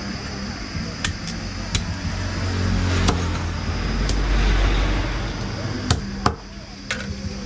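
A heavy fish knife knocking and chopping on a wooden chopping block while snakehead fish is cut up, several sharp knocks at irregular intervals. A low rumble swells up in the middle and fades.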